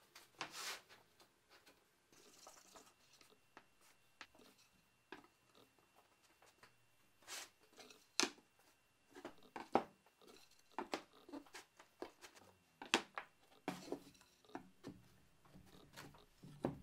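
Plywood boards handled and set down on a wooden workbench: scattered light knocks and taps, with soft rubbing in between.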